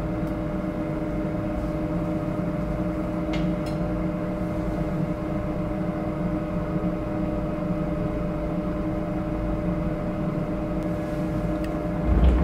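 Steady low machine hum holding several level tones, with a faint tick about three and a half seconds in and a louder low thump right at the end.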